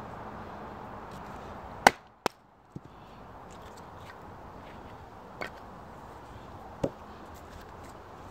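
Wooden baton knocking on the spine of a Tom Brown Tracker knife as it is driven through wood to split kindling. There are sharp, separate knocks: the loudest about two seconds in, a second one right after it, and a few fainter knocks later, over a steady background hiss.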